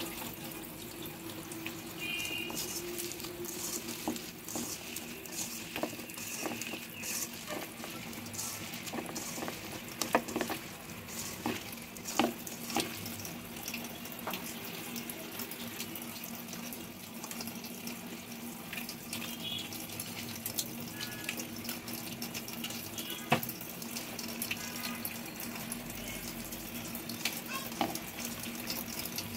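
Hands mixing wet, spice-coated grated potato and onion in a metal wok: soft wet rustling with scattered clicks and scrapes against the pan, over a steady hiss and a low hum.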